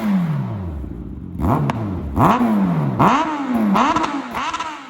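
Kawasaki Z900RS inline-four through a Black Widow aftermarket exhaust, revs falling away slowly, then blipped about five times in quick succession, each blip rising sharply and dropping back.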